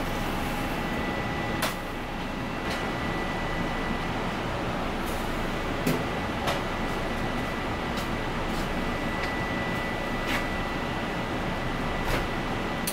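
Steady noise of a commercial kitchen with a gas range burner lit under a saucepan of boiling water, with a faint steady high tone. A metal ladle clinks sharply against the aluminium saucepan five times.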